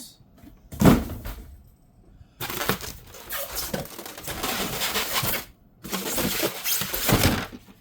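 A sharp knock about a second in, then two long spells of crinkling and rustling as packaging is handled and a plastic toy tank is unwrapped.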